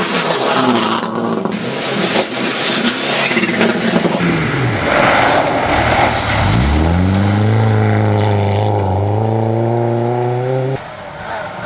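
Rally car engines at full throttle on a gravel stage. First a car running hard as it jumps a crest. Then a Volvo saloon's engine falls in pitch as it slows into a bend, and climbs and holds high as it accelerates away on loose gravel. The sound changes abruptly at the video cuts.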